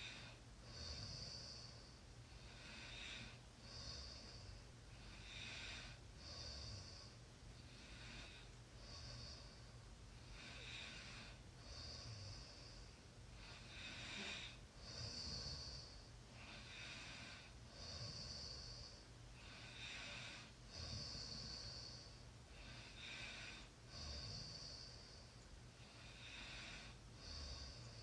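A sleeping person snoring softly: slow, even breaths in a steady rhythm, a full breath in and out roughly every three seconds, alternating a hissy breath with a rougher one.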